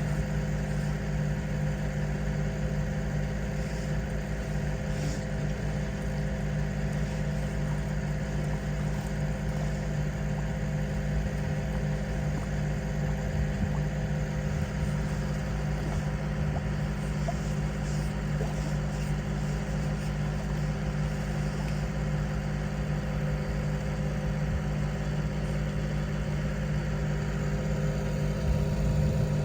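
An engine running steadily at a constant speed, with an even hum that does not change pitch.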